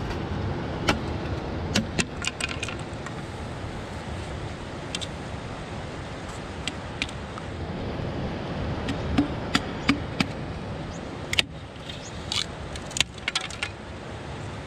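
Machete blade striking and shaving the end of a green bamboo pole: irregular sharp knocks and clicks, over the steady rush of a fast river.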